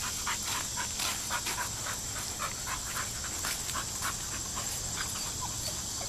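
Labrador puppy panting rapidly and steadily, about three or four breaths a second.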